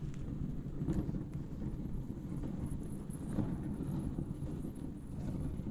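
Dog sled moving over packed snow: a steady low rumble and rattle from the runners and sled frame, with irregular knocks.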